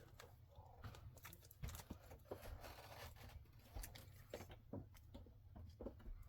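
Comic books being handled and set down: faint rustling with scattered light taps and clicks.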